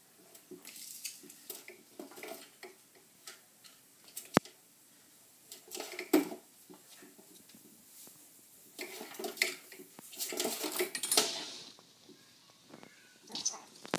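A kitten's frantic play: irregular clattering knocks, scrapes and scrabbling as it tears around a tubular metal chair frame. There is one sharp click about four seconds in and a busier run of scrabbling around ten to eleven seconds in.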